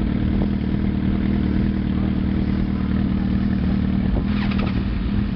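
Suzuki GSX-R1000 inline-four engine idling steadily through a Yoshimura M4 aftermarket exhaust.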